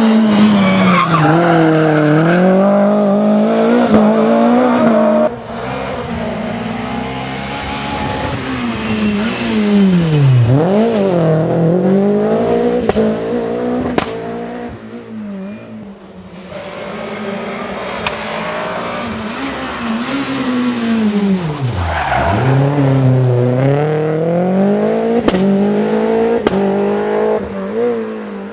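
Renault Clio Williams rally car's 2.0-litre four-cylinder engine at full throttle, revs climbing and dropping sharply as it lifts off and downshifts into corners, then pulling hard again, with tyres squealing. The sound jumps abruptly twice, as it cuts from one car or pass to another.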